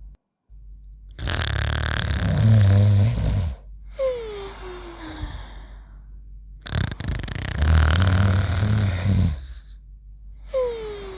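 Cartoon snoring: two long, loud snores, each followed by a whistle that falls in pitch on the breath out.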